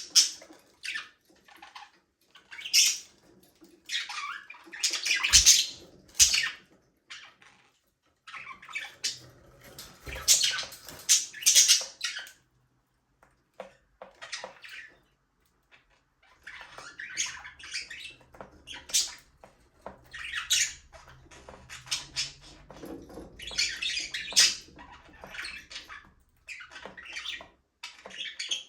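Budgerigars chirping and chattering in bursts of quick, high chirps and squawks, with a lull of a few seconds about halfway through.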